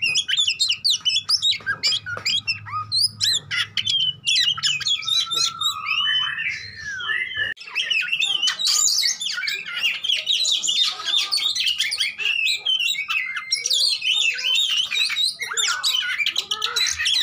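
Oriental magpie-robin (kacer) in loud, fighting-style song: a fast, almost unbroken run of sharp chirps, trills and gliding whistles.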